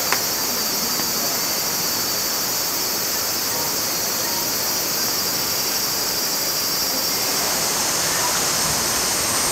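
Heavy rain pouring down in a steady, even hiss, with one brief click just after the start.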